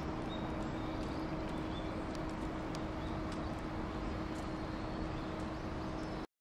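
Steady background noise with a constant low hum and a few faint clicks, cutting off suddenly near the end.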